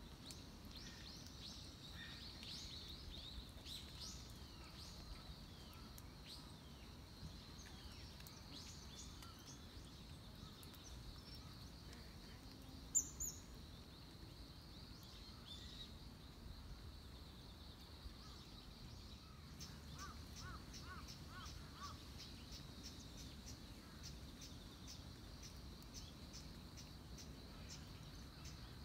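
Faint outdoor morning ambience with wild birds calling: many short high chirps in the first half and one sharp, much louder call about halfway through. Later a run of four quick notes, then an even ticking of about two a second to the end.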